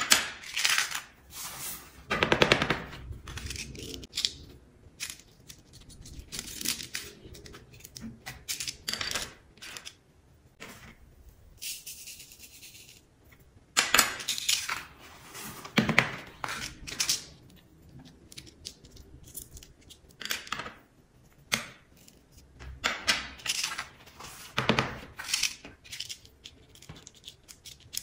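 Loose colored sand rustling and pattering as it is shaken and tipped off a sand-art card, with irregular sharp taps and knocks of the card and tools on the table.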